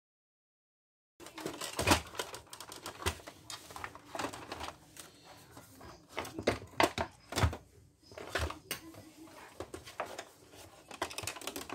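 Hard plastic clicks, taps and knocks from the casing and inner parts of an Epson L-series ink-tank printer being handled, unlatched and shifted, starting about a second in and going on irregularly with a few sharper knocks.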